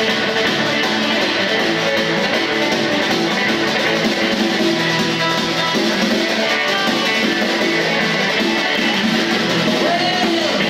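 Live rockabilly band playing an instrumental passage with no vocals: an orange hollow-body electric guitar playing over a standing drummer's snare beat.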